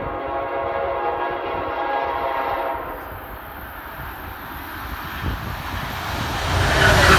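Amtrak ACS-64 electric locomotive's Nathan K5LA five-chime horn sounding a steady chord that cuts off about two and a half seconds in. It is followed by the growing rush and rumble of the train closing in and passing, loudest near the end.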